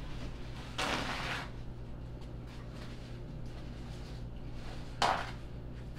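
A sheet of paper towel torn off a roll: a brief ripping rustle about a second in, then a second short, louder burst of noise near the end, over a steady low hum.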